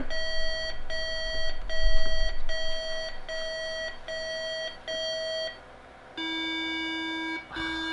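IBM PS/2 motherboard's PC speaker beeping out a register test from a custom debug BIOS: about seven short high beeps roughly 0.8 s apart, then after a short pause two long lower beeps. The mix of high and low beeps is the pattern for a register that reads back correctly, not the all-high pattern of a failure, while a finger presses on one corner of the faulty chip.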